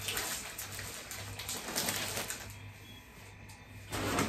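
Plastic packaging rustling, with light knocks and clicks as items are put down on a kitchen counter and the next one is picked up, over a steady low hum. The handling gets louder near the end.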